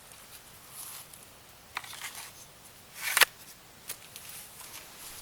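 Firewood being split by batoning with a BK Brute knife: a few sharp wooden knocks and cracks, the loudest about three seconds in.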